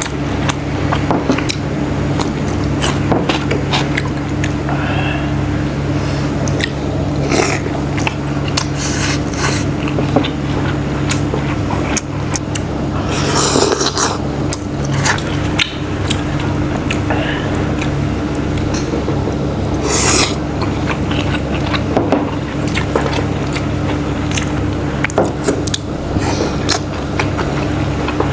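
A person chewing and biting food (bún đậu mắm tôm), with many short clicks and scrapes of utensils and dishes. A steady low hum runs underneath.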